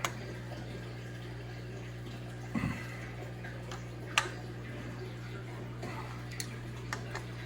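A steady low hum, with a few light, sharp clicks of small tools and screws being handled on a workbench.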